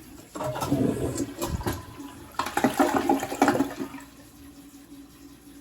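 Toilet flushing: loud, irregular rushing water in two surges over about three and a half seconds, easing to a quieter steady run of water.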